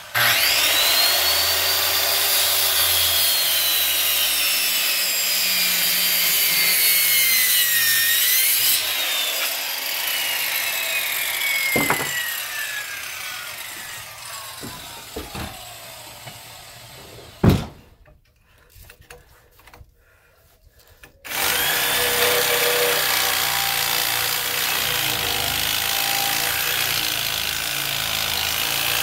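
Circular saw cutting through a pressure-treated timber post, its motor pitch sagging and recovering under load, then spinning down with a falling whine after it is released, with a sharp knock at about 17 seconds. After a short lull, a reciprocating saw starts cutting into the post about three-quarters of the way through, to shape the piling's point.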